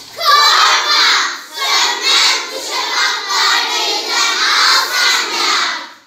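A whole class of young schoolchildren chanting loudly in unison, in short shouted phrases with brief pauses between them.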